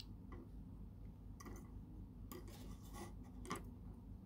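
Faint scrapes and light ticks of hand soldering on a circuit board, the iron tip and solder wire working at the pads, every second or so over a low steady hum.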